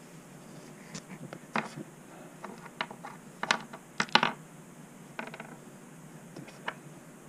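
Irregular clicks, taps and rattles of small hardware being handled: the screw, square washer and wing nut of a Scotty transducer mounting arm being worked into place by hand, the loudest cluster of clicks about four seconds in.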